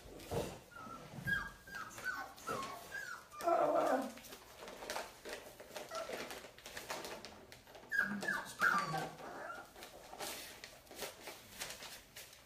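Puppies whimpering: runs of short, high, falling whines, with a louder, lower cry about three and a half seconds in.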